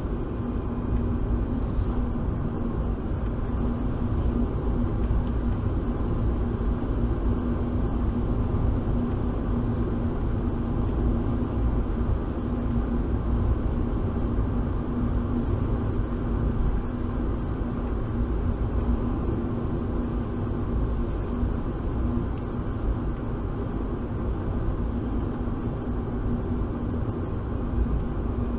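Steady car-cabin rumble of engine and road noise picked up by a windshield dash cam while driving slowly in town traffic, with a steady low hum throughout.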